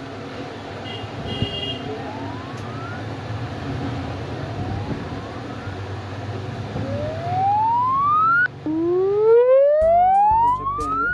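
Samsung Galaxy A21s earpiece speaker playing a repeating rising test-tone sweep from the phone's test menu, over a low steady hum. The sweeps are faint at first and much louder from about seven seconds in; the freshly repaired speaker is producing sound.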